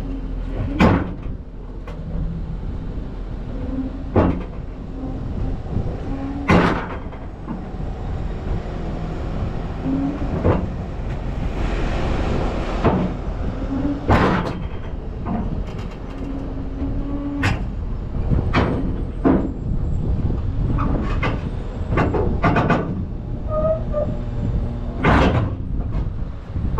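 Kobelco 210 excavator's diesel engine running steadily, with a dozen or so sharp metal clanks at irregular intervals as the machine is worked off the trailer.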